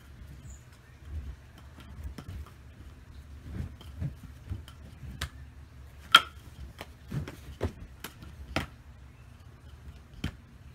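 Wooden nunchaku clacking as it is swung and caught in the hand: a string of irregular sharp knocks, the loudest about six seconds in.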